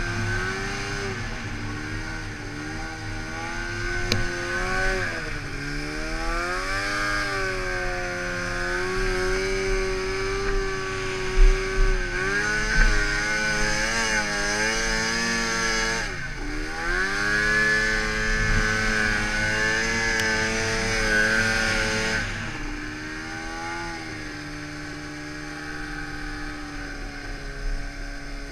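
Arctic Cat snowmobile engine working through deep powder, its pitch rising and falling as the throttle is worked, with a sharp drop and climb about halfway through and a couple of short thumps shortly before. Near the end it settles to a lower, quieter steady pitch.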